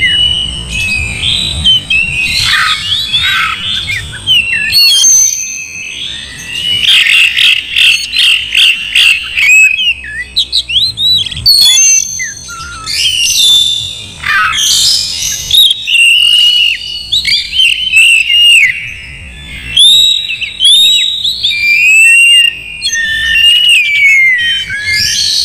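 Oriental magpie-robin (kacer) in full, continuous song: loud, varied whistled phrases with rising and falling notes, broken by quick rattling chatter.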